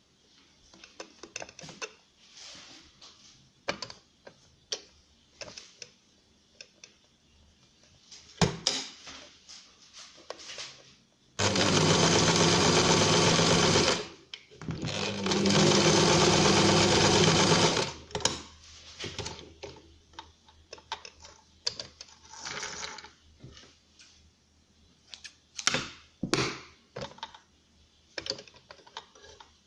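Electric sewing machine stitching felt in two steady runs of about two to three seconds each, near the middle. Scattered light clicks and handling noises come before and after the runs.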